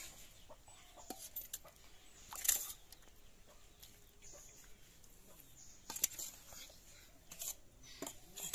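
Stainless steel ladle clinking and scraping against steel bowls and plates as fish curry is served onto rice: a handful of sharp clinks, the loudest about two and a half seconds in.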